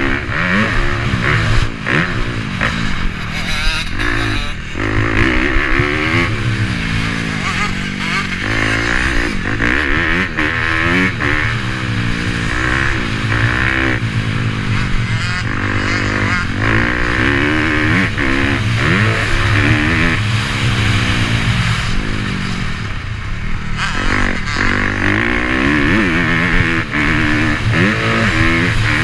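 Motocross bike engines revving, their pitch rising and falling over and over as they accelerate and shut off, with more than one engine at a time.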